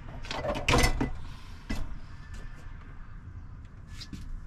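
Household items being handled and put away: a scatter of knocks and clicks, with the loudest clatter about a second in.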